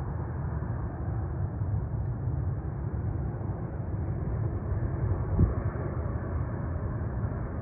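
Steady rumble of jet airliner engines, with a brief thump about five seconds in.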